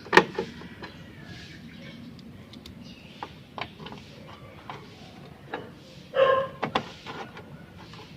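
Scattered clicks and knocks from handling and fitting parts of a window-type air conditioner during reassembly, the loudest just after the start. About six seconds in, a short pitched sound with several tones, then another sharp knock.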